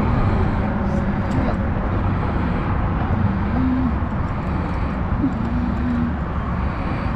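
Steady outdoor rumble and hiss, with two faint short hums partway through.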